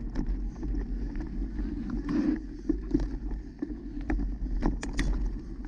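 Wind rumbling on the microphone over the noise of a mountain bike rolling on a dirt trail, with scattered sharp clicks and clacks from the bike rattling, several of them close together near the end.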